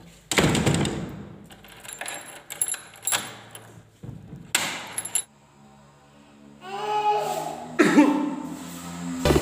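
A person coughing: one loud, harsh cough just after the start, then several shorter coughs, followed by a person's voice in the last few seconds.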